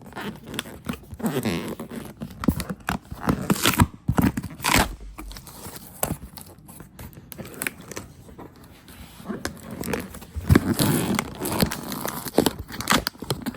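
The seal on a vacuum cleaner's shipping box being cut and torn open, then the box and its packaging handled: irregular tearing, scraping and crinkling with scattered knocks.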